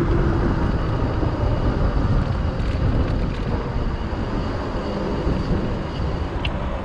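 Wind buffeting the microphone of a GoPro on a moving bicycle: a steady low rushing rumble that eases a little towards the end.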